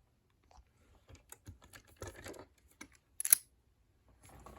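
Lock-picking tools and a padlock being handled: scattered light metallic clicks and rattles as the pick and tension tool come out of the keyway, with one sharp, louder click about three seconds in.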